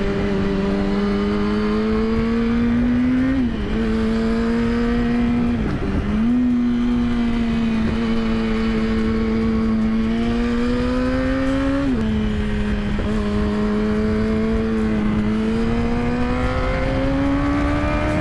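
Sport motorcycle engine pulling steadily on a climbing mountain road, its note rising slowly and dropping sharply about three and a half, six and twelve seconds in as gears change, with wind rush underneath.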